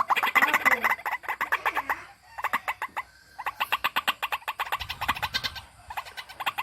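White-breasted waterhen calling: runs of rapid, repeated harsh notes, about ten a second, broken by short pauses into four runs.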